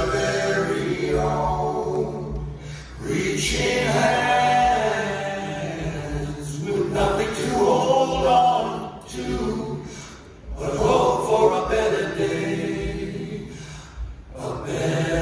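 Several male voices singing a slow hymn-like song in close a cappella harmony, in long held phrases with short breaks between them.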